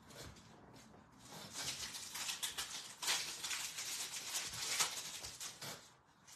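A small stack of 2023-24 Upper Deck Synergy hockey cards being thumbed through by hand: a dense, scratchy rustle of card sliding over card, starting about a second in and stopping shortly before the end.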